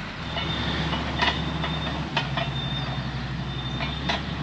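Motor grader's Cummins diesel engine running steadily at work, with scattered clanks and knocks on top.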